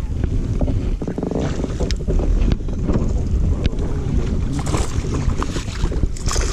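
Wind rumbling on the microphone over water around a fishing kayak, with a few sharp knocks and two bursts of splashing in the second half as a hooked bass is brought in.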